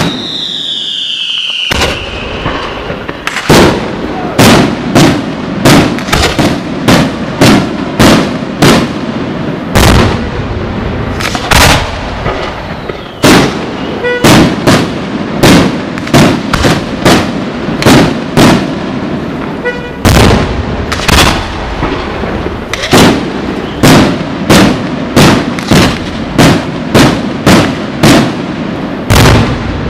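Aerial firework shells bursting in a rapid barrage of loud booms, about one to two a second. A falling whistle is heard at the very start.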